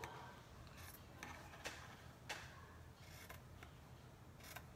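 Scissors cutting through fabric: a handful of faint, irregularly spaced snips.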